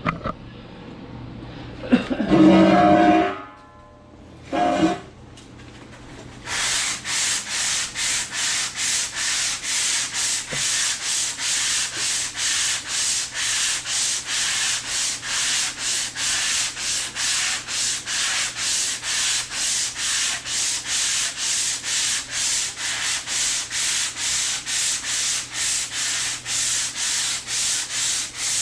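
80-grit self-stick sandpaper on a pool-noodle sanding block, hand block-sanding lightweight body filler on a car panel: steady back-and-forth strokes, about two a second, starting about six seconds in. Before that come a brief loud pitched noise about two seconds in and a shorter one about five seconds in.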